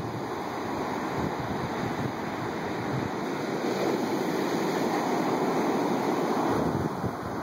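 Heavy storm surf from a tropical storm breaking and washing up a sand beach, a continuous rushing roar that swells louder past the middle and eases near the end, with gusty wind rumbling on the microphone.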